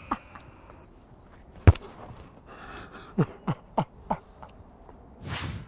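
A comic 'crickets' sound effect: a high chirping that pulses a few times a second. A sharp knock comes about a second and a half in, and a few soft thumps of a football being touched with the foot come past the three-second mark. A short rush of noise near the end cuts the chirping off.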